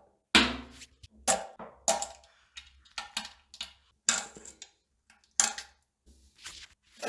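Someone defecating and passing wind: a dozen or so short, irregular pops and splutters, some close together, one every half second or so.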